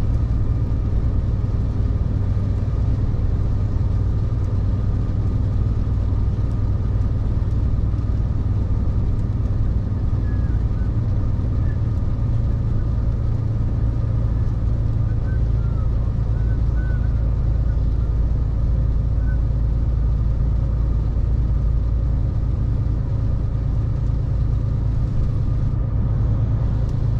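Heavy truck's diesel engine running steadily, an even low drone with no change in pitch.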